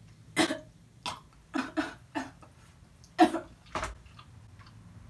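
A woman coughing in a series of short coughs, about seven in all, including a quick pair in the middle; the loudest come about half a second in and about three seconds in.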